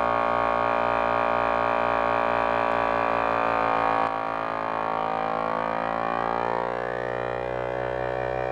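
A machine or motorized tool running with a steady, droning hum whose tone shifts about seven seconds in.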